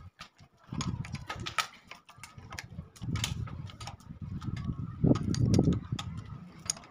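Metal clicks and taps of a 10 mm L-shaped socket wrench tightening the bolts on the carburetor's intake pipe of a 70 cc motorcycle engine, with dull handling noise in between.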